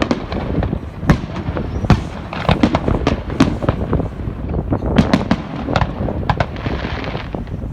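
Fireworks display going off: a rapid, irregular string of bangs and pops over a low rumble, with a burst of crackling hiss near the end.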